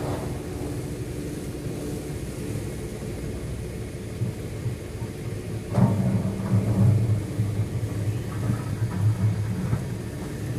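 Heavy diesel engine running steadily, heard from inside a truck cab; the engine note grows louder and heavier suddenly about six seconds in and stays up.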